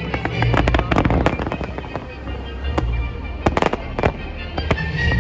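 Aerial fireworks going off in quick succession, sharp bangs and crackling, with a dense cluster of reports a little past halfway. Music with a steady bass plays underneath.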